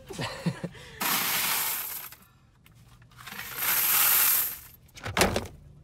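Two boxes of loose pennies poured into a bucket one after the other, each a dense rush of clinking coins lasting a second or so. A single thump follows near the end.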